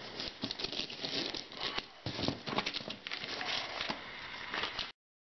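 Crinkling and rustling of a paper shipping envelope being handled and opened, with many small irregular taps and scrapes. The sound cuts off abruptly near the end.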